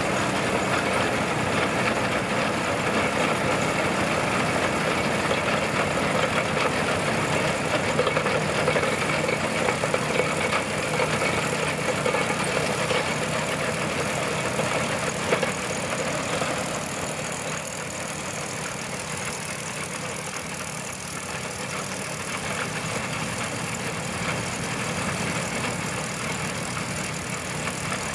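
Old tractor engine running steadily while it pulls a grain binder, with a fast mechanical rattle over it. It gets a little quieter about sixteen seconds in.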